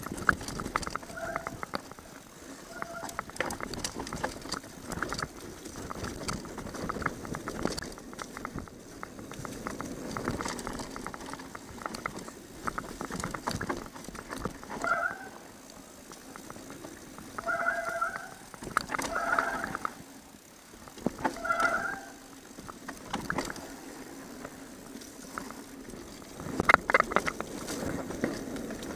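Mountain bike descending a dirt downhill trail: tyres running over dirt and debris with the bike's frame and chain rattling over bumps. Short pitched squeals come and go about eight times, and a hard clatter of knocks about 27 seconds in is the loudest moment.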